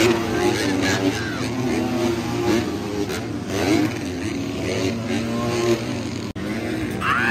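Several motocross dirt bikes racing past, their engines revving up and down as they accelerate out of the turns and over the jumps, overlapping one another.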